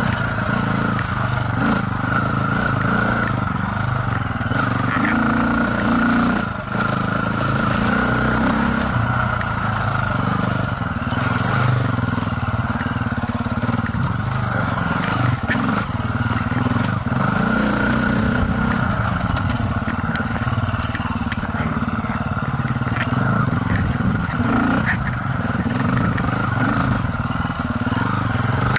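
Dirt bike engine running while riding a rough single-track trail, revs rising and falling with the throttle and briefly dropping about six seconds in. Occasional knocks and rattles from the bike over the uneven ground.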